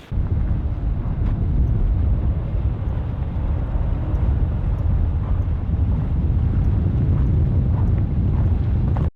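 A vehicle running steadily on the move: a constant low engine and travel rumble with no changes in pitch.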